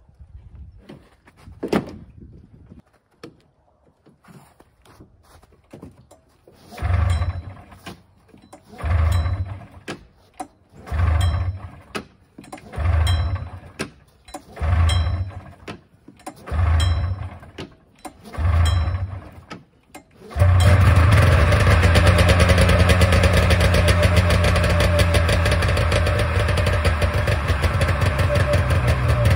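Polaris Trans Sport snowmobile's two-stroke engine being pull-started after sitting for a few weeks: seven short cranking bursts about two seconds apart, each failing to catch, then it fires about twenty seconds in and keeps running steadily. A few light knocks come before the first pull.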